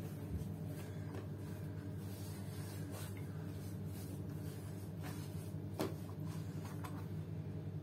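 Hands kneading and rolling a lump of dough into a long log on a floured wooden board: soft rubbing and light taps, with one sharper click a little before six seconds in, over a steady low hum.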